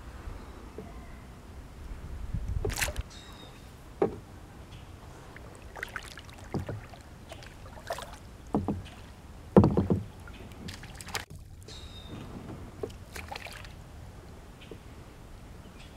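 Handling noises in a kayak: a scattered series of short knocks and bumps against the hull, the loudest about ten seconds in, over quiet water.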